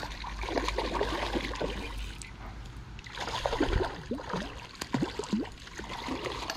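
A hooked trout thrashing and splashing at the water's surface, with water sloshing and gurgling as a landing net is pushed through the water to scoop it. The splashing is busiest a few seconds in.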